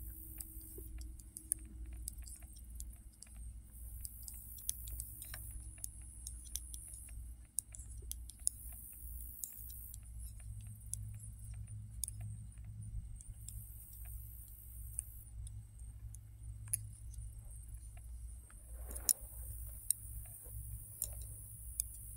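Knitting needles clicking and tapping against each other in light, irregular ticks as stitches are worked, over a steady low rumble.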